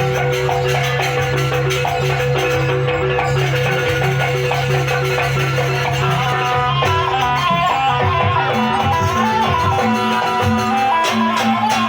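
Live jaranan dance music from a Javanese gamelan-style ensemble: rhythmic percussion and metallophones playing a steady repeating pattern, with a wavering melody line joining about halfway through.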